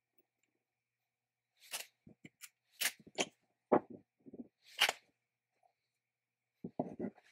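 Small steel parts (a knurled knob on a shaft, a coil spring and a bracket) being taken apart and set down on a wooden workbench: a string of short clicks and knocks starting about a second and a half in, then a quick cluster of three near the end.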